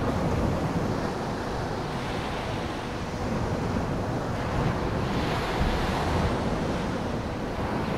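Surf washing on a beach, with wind buffeting the microphone; the noise swells and eases slowly.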